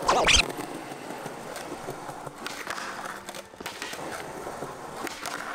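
A quick swoosh, then skateboard wheels rolling on a concrete skatepark surface, with a few sharp clacks from the board about midway and again near the end.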